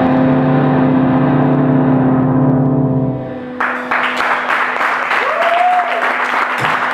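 The last chord of an amplified electric guitar rings on and fades as a rock song ends. About three and a half seconds in, the audience breaks into applause.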